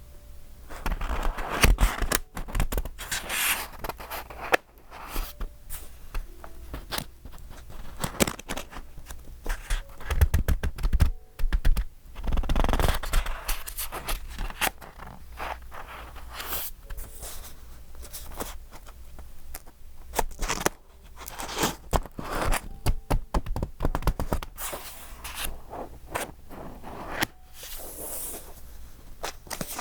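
Pages of a thick, decorated A5 paper journal being turned and handled: paper rustling and scraping in irregular bursts, with small taps and clicks.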